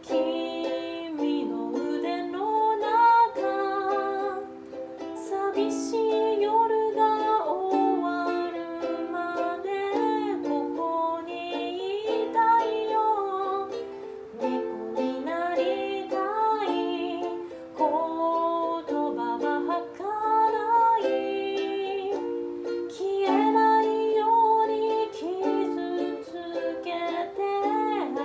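Ukulele played continuously with a voice singing along, the sung line gliding between notes.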